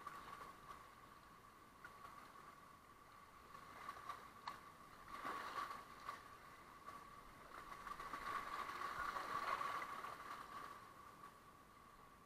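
Water splashing and gurgling around a kayak's bow and paddle as it runs through light riffles, with a splash about five seconds in and a longer swell of rushing water near the end. A faint steady high tone runs underneath.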